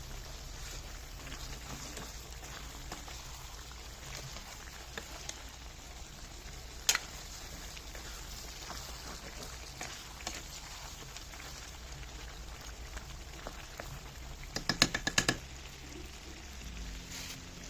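Chicken gravy cooking in a pan: a steady frying sizzle with scattered crackles, a sharp click about seven seconds in and a quick run of clicks near the end.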